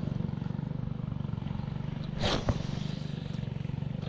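A small engine running steadily with an even, rapid throb. A short rushing burst with a sharp click comes a little over two seconds in.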